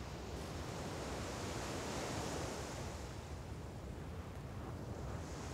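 Sea waves washing, a steady wash of noise that swells a little about two seconds in.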